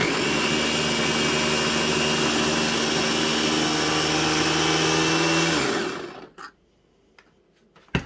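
Electric mini food chopper's motor running steadily, its blade chopping parsley and garlic in the glass bowl, for about five and a half seconds, then winding down. A few light knocks follow, with a sharp knock near the end as the motor unit is lifted off the bowl.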